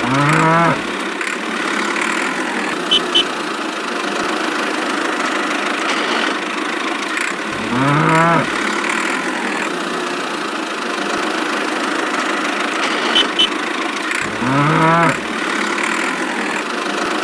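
Cow mooing three times, about seven seconds apart, each call about a second long and rising then falling in pitch, over a steady engine running. Two pairs of short sharp clicks, a few seconds in and again near the end.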